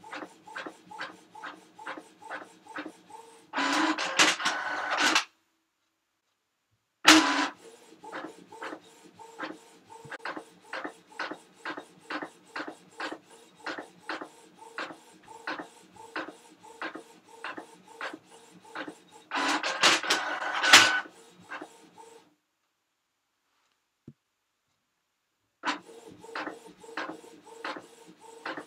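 Printer running: a regular clicking at about two to three clicks a second, broken twice by a louder, noisier burst lasting a second or two, each followed by a short silence before the clicking starts again.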